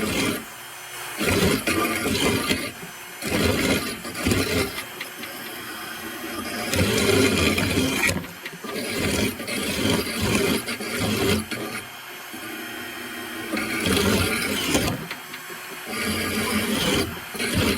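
An electric drill spins a sharpening stone against the edge of a steel lawnmower blade, grinding in spells of a few seconds that stop and start again. The stone is working off rough edges and nicks before it reaches a fresh edge.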